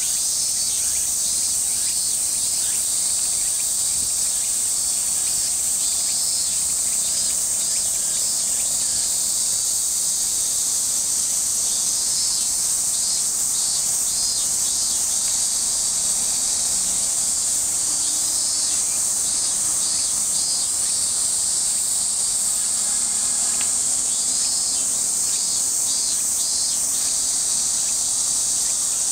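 Insects singing in a steady, high-pitched chorus that never lets up, with a rapid pulsing trill running through it.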